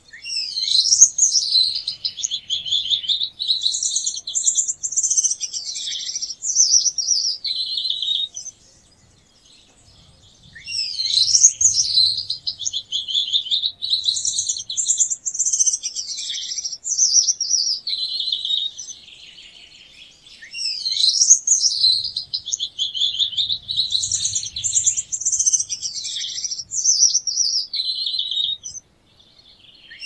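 Gouldian finch singing: three high-pitched, buzzy song phrases of about eight seconds each, separated by short pauses, with another phrase starting at the very end.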